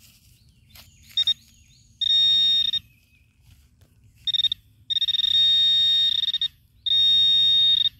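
Handheld metal-detecting pinpointer giving its high steady alert tone in several on-off stretches, the longest about a second and a half, as its tip probes loose soil: it is signalling a metal target in the hole.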